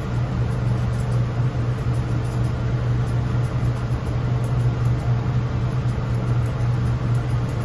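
Steady low mechanical hum of a machine running in the grooming room, even in level throughout. Over it come faint, irregular light snips from thinning shears cutting the fur between a dog's eyes.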